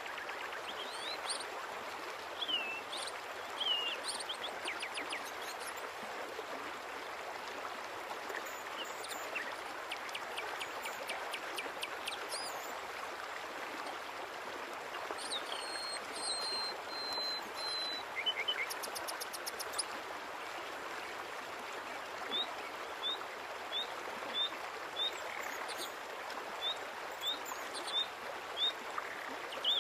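Steady rush of running water with small birds chirping over it: scattered short whistled chirps, a few rapid trills, one held high whistle about halfway through, and a quick run of short repeated chirps near the end.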